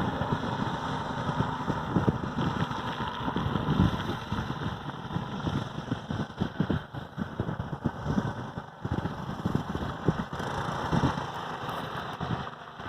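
Engine of a home-built two-wheel-drive motorcycle running unevenly in heavy mud, its loudness rising and falling as the throttle and load change.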